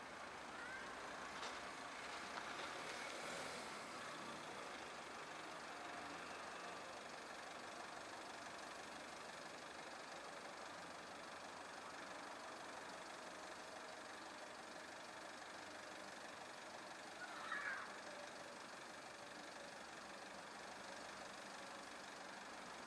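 A small van pulls up to a closed level-crossing barrier and idles faintly and steadily. A short chirp sounds once, late on.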